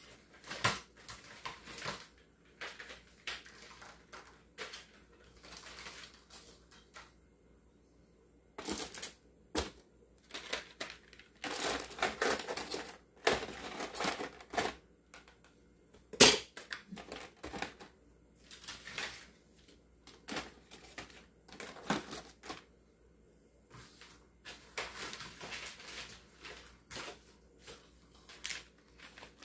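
Rummaging through a cluttered kitchen drawer: plastic packages rustling and small items clicking and knocking about in irregular bursts, with a couple of brief pauses and one sharper knock about halfway through.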